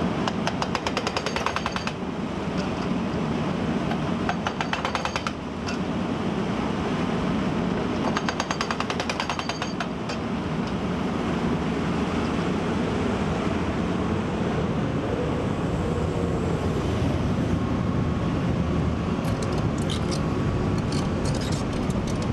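Hydraulic breaker hammer on a Caterpillar 324E excavator pounding a rock wall in several bursts of rapid, evenly spaced blows. The excavator's diesel engine runs steadily underneath.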